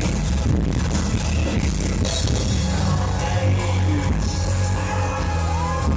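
Loud live industrial music played through a club PA, with a heavy, steady bass.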